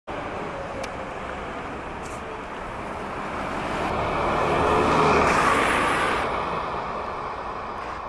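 Road traffic: a steady hum, with one vehicle passing that grows loudest about five seconds in and then fades away.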